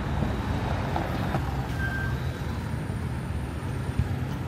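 Steady low rumble of motor vehicles running, with a single sharp click about four seconds in.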